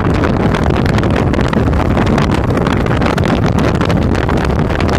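2005 Suzuki Boulevard C50's 805 cc V-twin engine running steadily as the motorcycle rides along, mixed with heavy wind noise on the handlebar-mounted phone's microphone.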